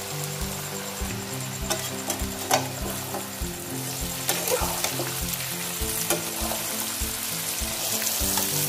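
Mango pieces sizzling in hot oil in a kadai, stirred with a spatula that scrapes the pan now and then. Soft background music with a steady beat runs underneath.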